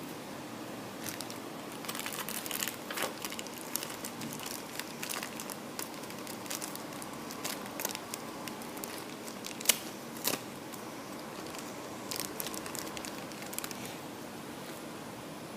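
Plastic packaging of a Beyblade top crinkling and crackling as it is handled and opened, in irregular short clicks over a steady hiss. The sharpest snap comes near the middle, followed by a second one just after.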